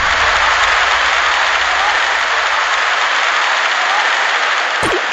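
Large concert crowd applauding and cheering steadily in an arena. There is a short low thud near the end.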